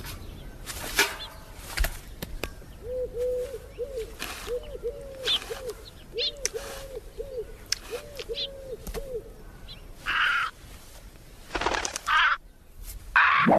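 A bird calling a run of short notes on one pitch, in twos and threes, for about six seconds, over scattered rustles and clicks. After that come a few short breathy noise bursts.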